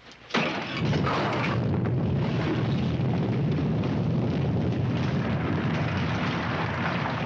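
Sudden deep rumbling of an earthquake sound effect, starting a moment in and holding steady at a loud level.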